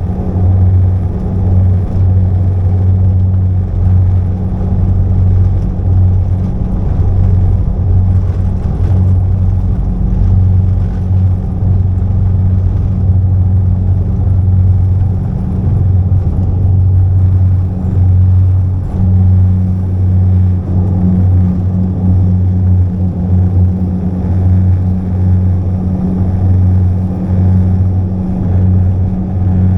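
Propeller airliner's engines and propellers droning steadily, heard inside the passenger cabin: a loud, deep, even hum with a second, higher tone above it and a rumble underneath.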